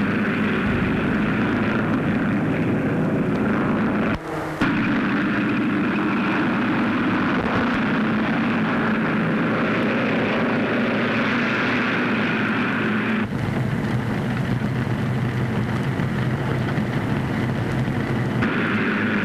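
Massed race car engines running in a steady drone on an old film soundtrack, with the sound cut abruptly about four seconds in and changing again about thirteen seconds in.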